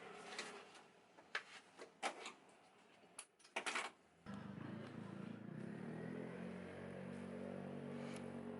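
A few light clicks and taps, then about four seconds in a steady motor hum switches on and keeps running, like a small household appliance.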